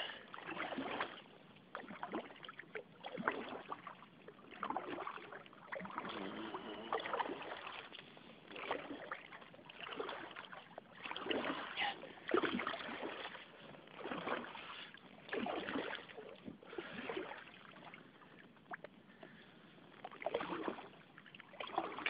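A paddle dipping and pulling through the water in irregular strokes, roughly one every second or two, as a small boat is paddled one-handed.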